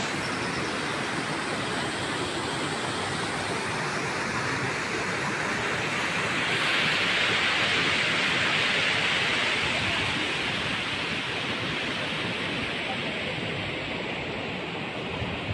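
Steady rush of water spilling over the rocky outlet of an overflowing lake. It grows louder about six seconds in and eases off toward the end.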